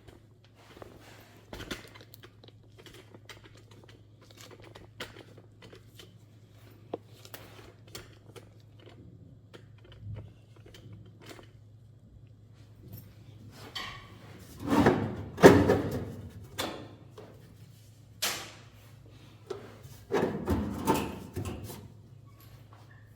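Scattered knocks and clatters of parts and tools being handled during repair work, with two louder runs of clattering about two thirds of the way in and near the end, over a steady low hum.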